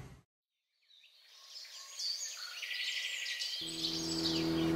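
After a moment of silence, birds chirp, and about three and a half seconds in a motorcycle engine comes in, growing steadily louder as it approaches.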